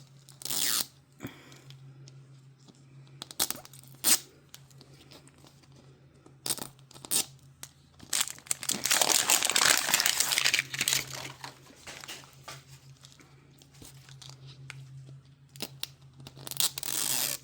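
Plastic wrapper of a Mini Brands Minis capsule being torn open along its tear strip and crinkled, with one long tearing run about halfway through and short rustles and clicks before and after.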